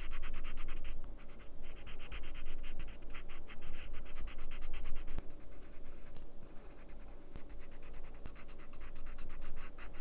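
Coloured pencil scratching on paper in quick back-and-forth shading strokes. The strokes pause a little after five seconds in, with a single click, then start again for a few more seconds.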